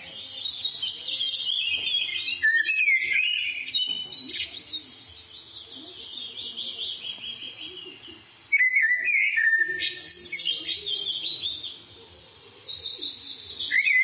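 Rose-ringed parakeets calling in a run of shrill, rapid chattering screeches that come and go in bursts, with a short lull shortly before the end.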